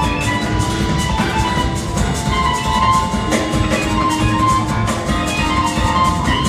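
Live jazz-fusion band and orchestra playing: drum kit keeping a steady beat under keyboards, guitars and held melodic tones, with no break.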